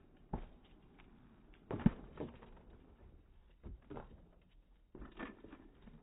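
A mini BMX knocking and thumping as it rides over a plywood ramp off a curb and lands on tarmac: a handful of short knocks, the loudest about two seconds in.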